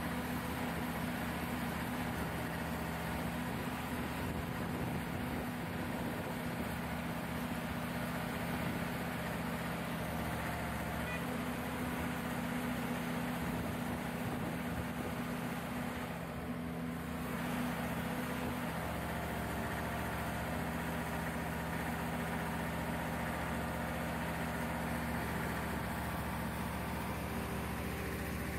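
Diesel engine of a crane truck running steadily at idle while its truck-mounted hydraulic crane lifts a load, its note shifting slightly about two-thirds of the way through.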